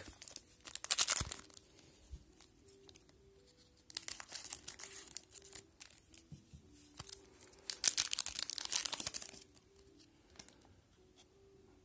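Wrapper of a Panini Zenith hockey card pack being torn open and crinkled in the hands, in three bursts of crackling near the start, about four seconds in and about eight seconds in, with light clicks of handling between them.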